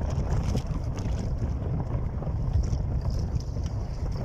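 Gusty wind buffeting the microphone: a steady, rough low rumble with faint scattered ticks above it.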